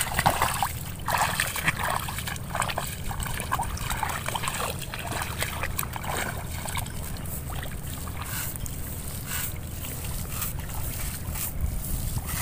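Water sloshing and splashing in a flooded rice-paddy seedbed in irregular bursts, over a steady low rumble.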